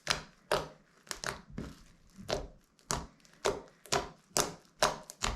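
Soft homemade slime with styrofoam beads being squeezed and stretched by hand, making sharp, wet clicks and pops about twice a second.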